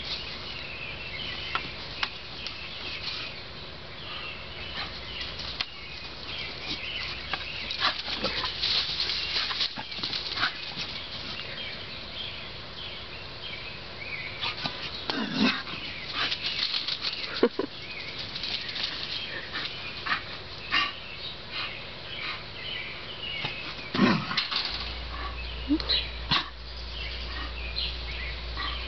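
Rustling and scuffling as small animals run about through grass and wood chips, with a few short yelps.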